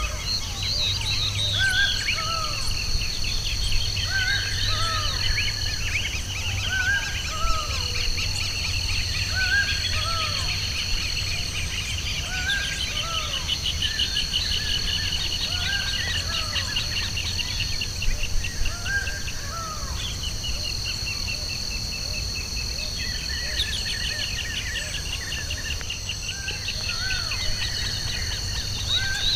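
Birds singing outdoors: one repeats a short arched whistle over and over, about once a second, while others trill faster and higher. Underneath are a steady high-pitched drone and a low rumble.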